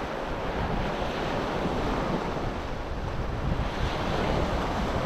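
Waves washing onto a beach, with wind rumbling steadily across the microphone.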